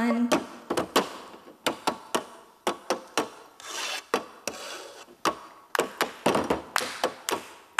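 Plastic cups rapped, slid and set down on a tabletop, mixed with hand claps, in a rhythmic cup-game routine: a string of sharp taps and claps a few a second, with short scrapes between.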